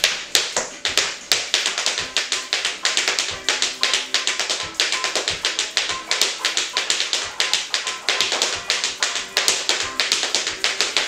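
Tap shoes striking the floor in quick tap-dance steps, several sharp taps a second, over ragtime music.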